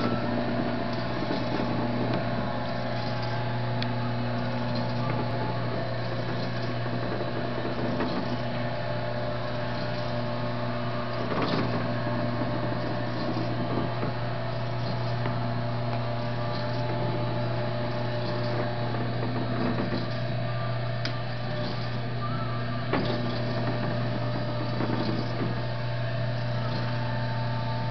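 Lantech T-Wrapper stretch pallet wrapper running, its electric drive giving a steady low hum with a few short clicks along the way.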